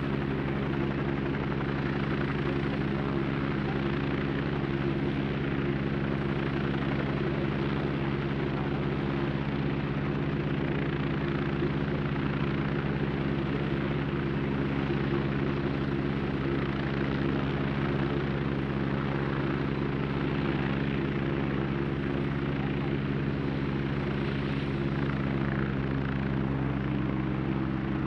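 Vintage British Army helicopter flying: a steady drone of stacked low tones from rotors and engine, with a slight rise in pitch near the end.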